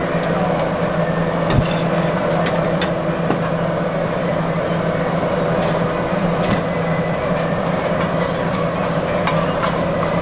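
Street-stall ambience: a steady low mechanical hum, with scattered light clicks and taps of bamboo skewers and utensils being handled at a charcoal grill, one sharper tap about one and a half seconds in.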